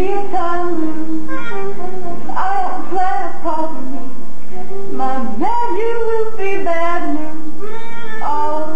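A woman's voice singing a show tune over an instrumental backing with plucked strings: the recorded soundtrack of an audio-animatronic stage show. The sung lines slide up and down in pitch and run continuously.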